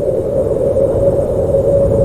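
Howling wind: a steady howl held at one middle pitch over a low rumble.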